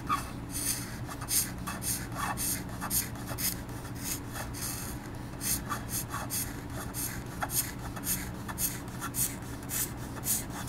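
Handmade hand scraper scraping the sunburst colour coat off a guitar body's binding in short, repeated strokes, a few a second, over a steady low hum.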